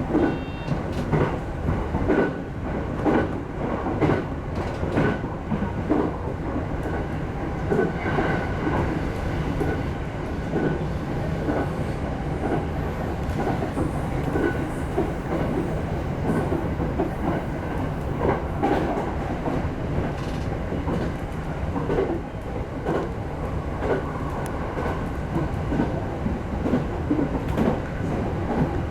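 A JR East E217 series electric train running at speed, with a steady rumble and a regular clickety-clack of the wheels passing over rail joints.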